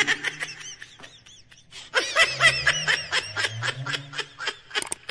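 Rapid snickering laughter, short bursts about five or six a second in two runs, with a brief break about a second and a half in.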